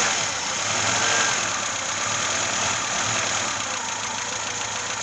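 VAZ-2106 (Zhiguli) four-cylinder petrol engine idling steadily, having just been started.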